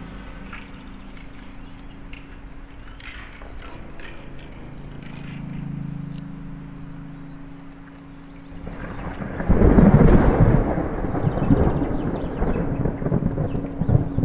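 Designed soundtrack: a low steady drone and a fast, regular high ticking, then about nine seconds in a loud thunder-like rumble breaks in and keeps rumbling.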